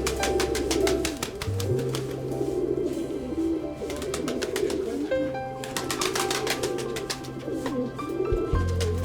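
Domestic pigeons cooing continuously, over background music with a steady bass line and beat.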